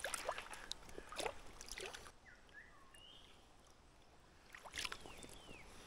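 Water sloshing and swishing in a gold pan as it is swirled and dipped, working sandy clay down to the gold. It swishes for about the first two seconds, goes quiet, then swishes again briefly about five seconds in.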